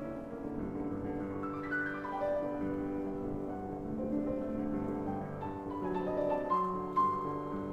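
Solo piano playing classical music, a melody moving over held chords.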